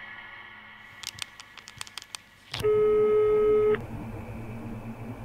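A quick run of small clicks, then a steady electronic telephone tone, one beep about a second long, starting about two and a half seconds in, like the ringing tone of a phone call being placed.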